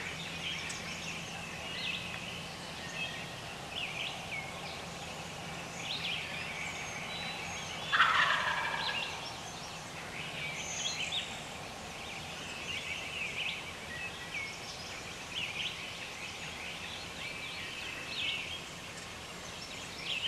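Wild turkey gobbler gobbling once, about eight seconds in: a loud rattling call that drops in pitch over about a second.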